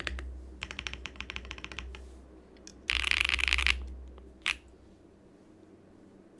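Mode Sonnet mechanical keyboard with BSUN Hutt tactile switches being typed on: a quick run of key strikes, then a loud dense burst of clacking just under a second long, and one last single keystroke.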